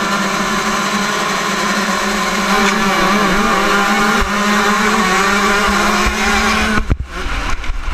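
125cc two-stroke motocross bikes at full throttle off the start, the nearest engine held high and steady with small wavers as it pulls down the start straight. About seven seconds in the throttle is shut suddenly and the engine note drops away, then comes back in short bursts as the rider sets up for the first turn.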